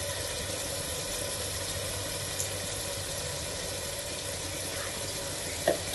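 Onion-tomato masala frying in oil in a cooking pot, a steady sizzle with a faint low hum under it. A short knock near the end.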